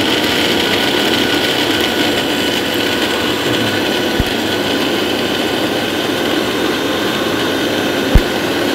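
Bajaj REX 500 W mixer grinder's motor running loud and steady on its first speed, its stainless steel jar wet-grinding coriander, tomato and peanuts with a little water into chutney. Two brief low thumps come about four and eight seconds in, the second the louder.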